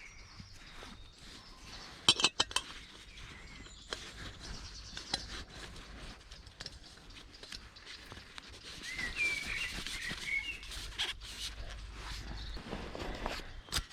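Small birds chirping in woodland, a short run of chirps about nine seconds in, with a few sharp clicks and knocks about two seconds in and scattered light ticks from gear being handled.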